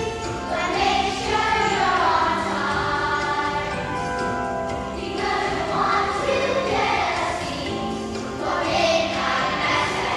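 Recorded Christmas song sung by a choir, with accompaniment.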